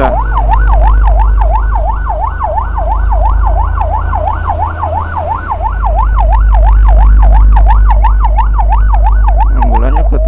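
Electronic emergency siren on a fast yelp, its pitch sweeping up and down about three to four times a second.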